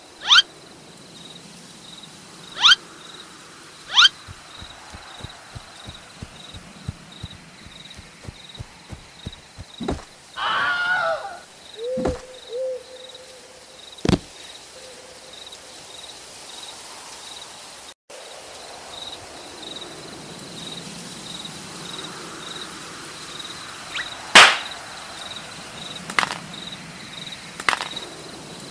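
Cartoon sound effects over a forest ambience of steadily chirping insects: a string of sharp hits and cracks, the loudest about three-quarters of the way through, a quick run of soft thuds, and a wavering call that settles into a short hoot.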